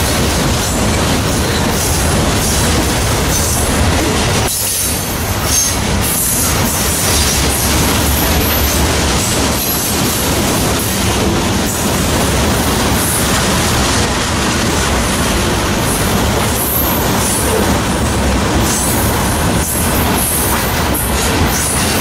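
Freight train hopper cars rolling past close by: a steady heavy rumble of steel wheels on rail, with repeated clicks as the wheels cross rail joints and high-pitched wheel squeal at times.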